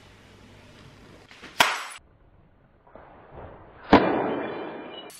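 Two sharp knocks, the second louder and followed by a short fading rush of noise.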